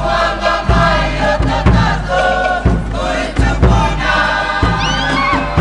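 A group of voices singing and chanting together over low drum beats, with a few high rising cries near the end.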